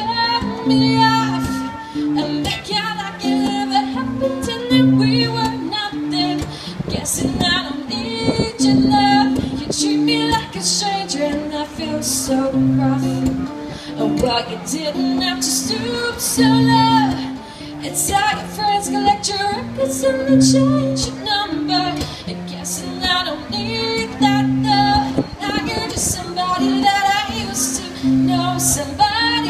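A woman singing live to her own acoustic guitar, the guitar playing a steadily repeating chord pattern under the melody.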